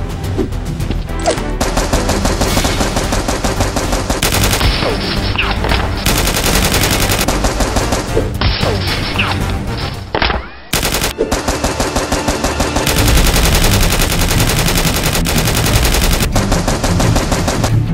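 Rapid automatic gunfire in long, continuous bursts, with a brief break about ten seconds in.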